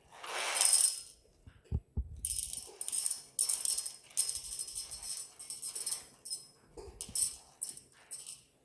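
Coffee beans rattling in a Timemore Chestnut Slim hand grinder's aluminium body: a few seconds of crisp, jingly rattle full of small clicks, after a short rustle and two knocks.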